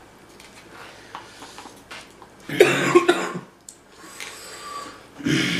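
A man coughs, one short burst a little past halfway, from the burn of extra-spicy ramen noodles.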